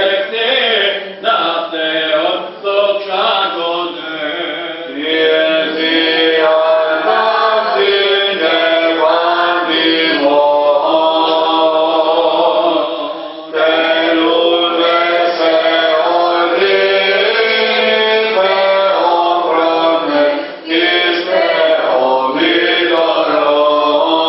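Byzantine chant in an Orthodox church: a slow, melismatic hymn with long held notes, with brief breaks for breath about 13 and 21 seconds in.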